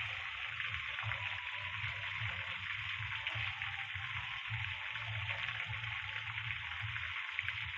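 Battered chicken pakoras deep-frying in hot oil: a steady sizzle with fine crackling as the pieces crisp.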